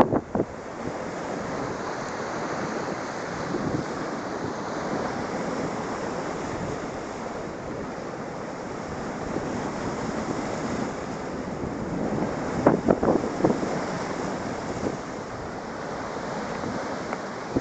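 Strong sea waves surging and breaking in a steady rush of surf, with wind buffeting the microphone, heaviest in a cluster of gusts about two-thirds of the way in.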